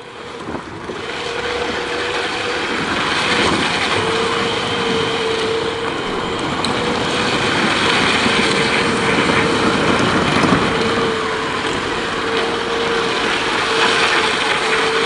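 Battery-powered ride-on toy car's electric motor and gearbox whining at a steady pitch, with hard plastic wheels rolling noisily over asphalt.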